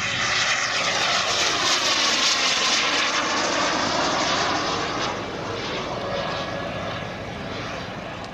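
Kingtech K-210 model gas turbine of a large radio-controlled BAE Hawk jet making a fast pass: a loud jet rush with a whine that sweeps in pitch, swelling about a second in and falling away after about five seconds as the jet flies off.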